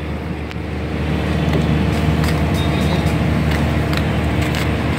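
Steady low hum of motor-vehicle engines in street traffic, growing a little louder about a second in, with a few faint clicks over it.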